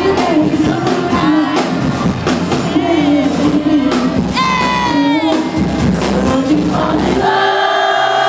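Live concert music: a male voice singing over heavy bass through a loud PA, with the crowd audible. About seven seconds in, the bass drops out and held, sustained tones remain.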